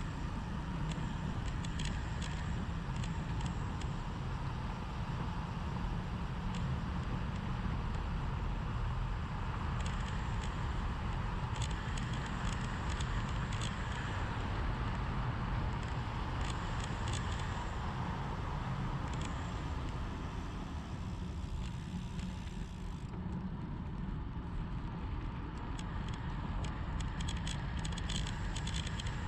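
Wind rushing and buffeting over a bike-mounted action camera's microphone, with tyre noise on asphalt, as a road bike descends at speed. Scattered small ticks and rattles come through, thicker in the last few seconds.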